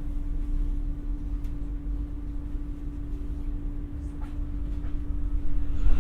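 Stockholm commuter train's X60 electric multiple unit running, heard from inside the carriage: a low rumble of wheels on the track with a steady hum, growing a little louder near the end.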